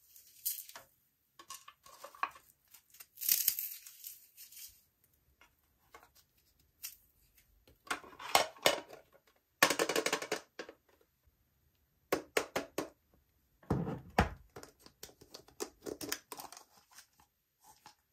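Slime being worked by hand: irregular bursts of sticky crackling, tearing and popping with short quiet pauses between, and a heavier squelch about two-thirds of the way through.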